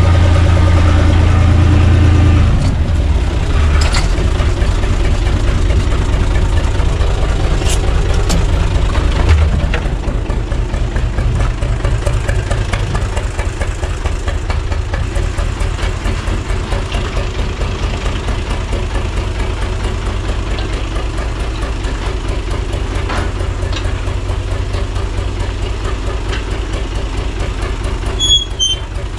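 UTB U445 tractor's four-cylinder diesel engine idling steadily, loud and close for the first couple of seconds, then further off and a little quieter. A brief metallic squeak near the end as a metal hand cart's drawbar is grabbed.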